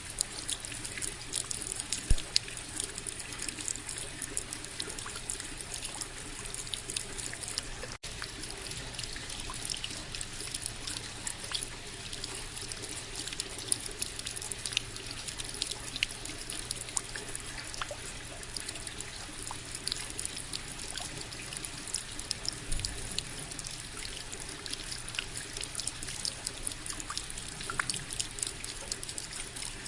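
Steady rain: a constant hiss thick with individual drops ticking, with a trickling-water quality. It cuts out for an instant about eight seconds in.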